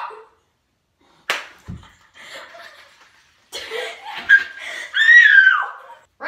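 A raw egg cracked once against a person's head, a single sharp crack about a second in. Loud laughter and a high cry follow in the second half.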